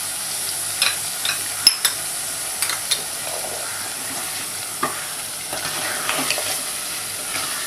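Masala gravy sizzling in a pan while a spoon stirs it, with a steady hiss and scattered sharp clicks and scrapes of the spoon against the pan, most of them in the first few seconds.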